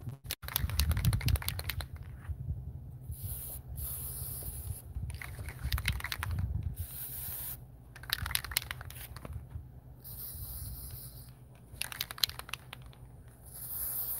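Aerosol can of cold galvanizing spray paint hissing in a series of short bursts as it is sprayed onto steel anchor bolts, with scratchy crackling between the bursts.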